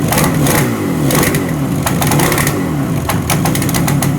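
Freshly rebuilt Yamaha RD350 two-stroke parallel-twin engine running, its revs rising and falling repeatedly with a rapid crackle of exhaust pops.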